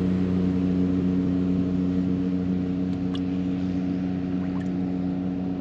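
Boat motor running steadily at a constant pitch, with no change in speed.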